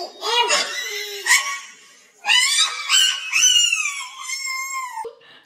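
A woman's voice in short exclamations and laughter, then from about two seconds in a long high-pitched squeal lasting nearly three seconds that slowly falls in pitch.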